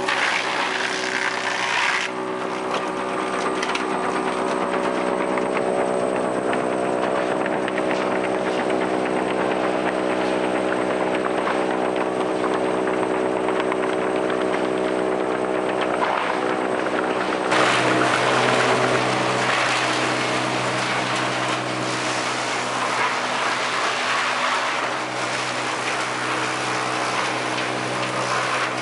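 Sawmill machinery running steadily with an engine-like hum. A louder rasping noise that fits a saw cutting wood fills the first couple of seconds, fades, and comes back about two-thirds of the way through.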